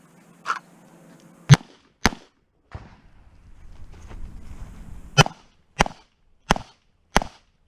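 Handgun shots fired in a timed shooting stage: two quick shots about a second and a half in, a pause with some rustling, then four evenly spaced shots about two-thirds of a second apart near the end.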